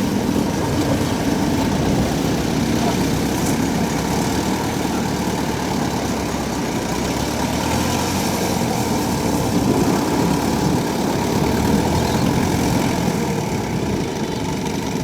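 Kubota DC70 combine harvester's diesel engine running steadily, with the even mechanical drone of the machine.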